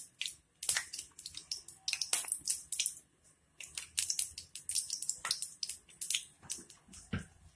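Washed banana flower florets being handled in a plate: irregular crisp crackles and light clicks, with a short pause about three seconds in.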